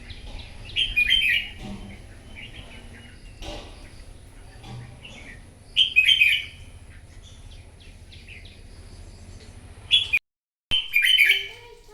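Red-whiskered bulbul song: four short, loud warbled phrases a few seconds apart, with a brief dropout in the sound about ten seconds in.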